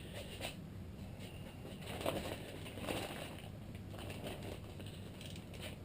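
Faint scrapes and light handling of a wrench working a crankcase bolt on a motorcycle engine, a couple of soft scrapes about two and three seconds in, over a low steady hum.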